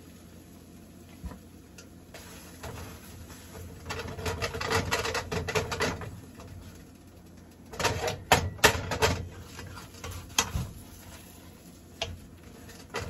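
Silicone spatula scraping and knocking in a nonstick frying pan as a quesadilla is worked and turned, with a cluster of sharp clicks and knocks about eight seconds in.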